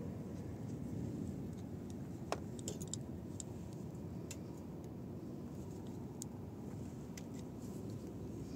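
Light, scattered clicks and ticks of a screwdriver and sensor wires being handled at a small junction box, over a steady low rumble.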